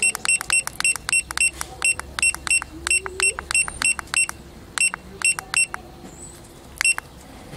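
GitUp Git2P action camera's key-tone beeps: a quick run of short, identical high beeps, about four a second, each one a button press stepping through the settings menu. The run pauses briefly near the end and one last beep follows.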